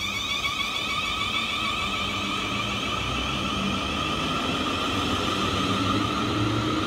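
South Western Railway Class 444 Desiro electric multiple unit pulling away along the line, its traction equipment whining in several steady tones that slowly rise in pitch as it gathers speed, over the rumble of wheels on rail.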